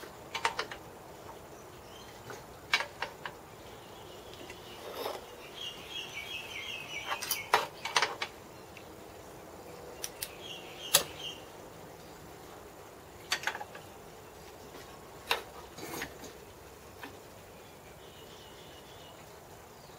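Scattered sharp clicks and knocks of small metal parts and G-clamps being handled on a workbench. A high chirping trill comes in the background several times.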